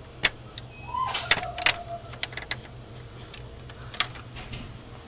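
Plastic pump bottle of hand soap being pumped and handled: a scattered run of sharp clicks and knocks, the loudest just over a second in, with a short squeaky tone around the same time.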